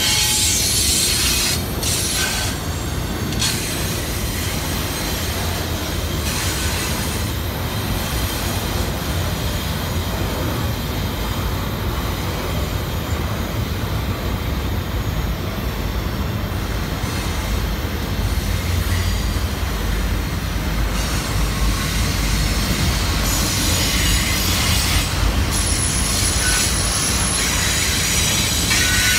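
Long double-stack container freight train rolling past: a steady rumble of steel wheels on rail, with a thin high wheel squeal now and then as the cars take the curve.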